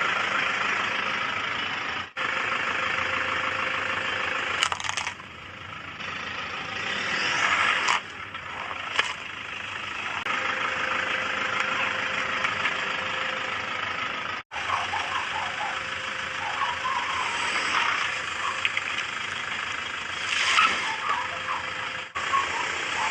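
Car engine running while a tire rolls over objects and crushes them, with several sharp cracks and crunches along the way.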